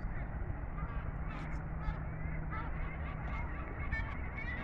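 Ducks and geese calling: many short quacks and honks scattered through, over a low steady rumble.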